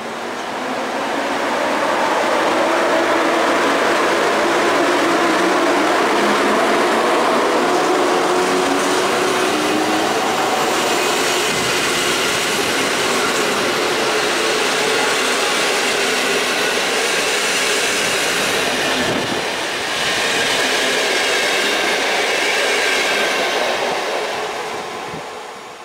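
Passenger train hauled by a PKP EP07 electric locomotive running past along the platform: a steady rush of wheels and coaches that builds as the locomotive comes by, holds for about twenty seconds, then fades as the last coach goes by near the end. A thin high squeal joins in during the last few seconds.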